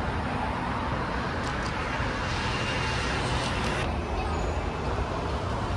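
Road traffic on a city street: a steady rush of passing cars, louder in the middle and easing off about four seconds in.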